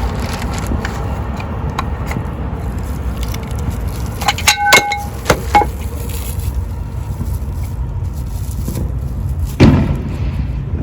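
Fireworks going off in the distance, with one loud bang near the end over a steady low rumble. Around the middle come a few sharp, ringing metallic clinks.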